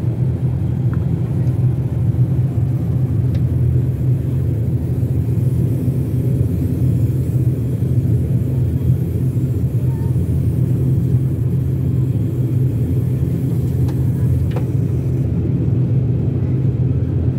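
Steady low drone of an ATR 72-500's turboprop engines and propellers, heard from inside the passenger cabin.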